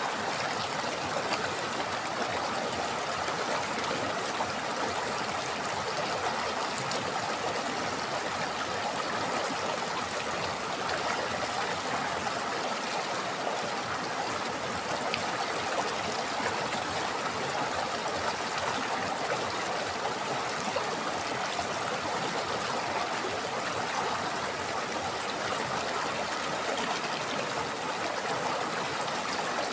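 River water flowing over rocks in a steady, unbroken rush with a light gurgling.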